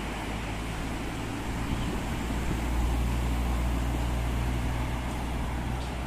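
Road traffic passing on a multi-lane road: a steady wash of tyre and engine noise, with a low vehicle rumble that swells about halfway through and eases off near the end.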